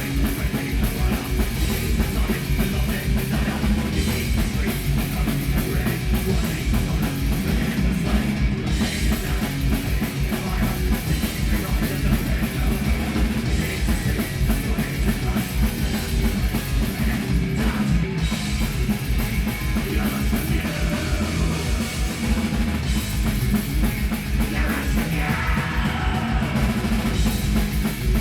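Live heavy metal band playing: fast drums with distorted guitar and bass.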